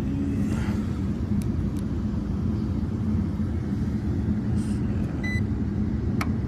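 Steady low hum of running machinery with a held tone, plus a short electronic beep about five seconds in and a few sharp clicks near the end.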